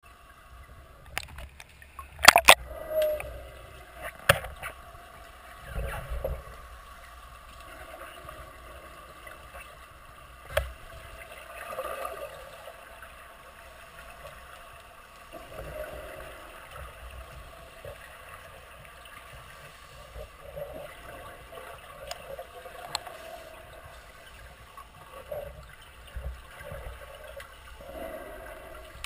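Muffled underwater water noise in a swimming pool, heard by a submerged camera: a low rumble with soft swells as the swimmer moves through the water. Scattered sharp clicks and knocks, with a loud cluster about two seconds in.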